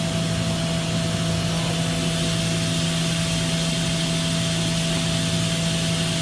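Makino F5 CNC vertical machining center running: a steady machine hum under a constant hiss, unchanging throughout.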